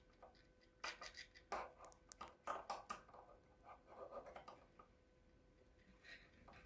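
Faint, irregular small clicks and scratches of fingers and a tool working at a cuckoo clock movement's drive chain, trying to free a link jammed between the gears. The clicks bunch in the middle and thin out near the end.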